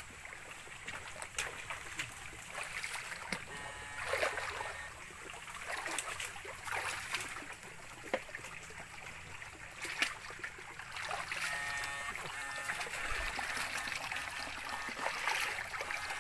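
Footsteps and crackling of dry fronds and bamboo leaves as someone pushes through undergrowth beside a small stream trickling over stones. Frequent short snaps and clicks, with a brief electric buzz a little past the middle.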